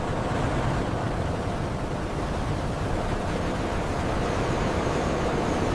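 V-22 Osprey tiltrotor's proprotors and engines running, a steady rushing noise heaviest in the low end.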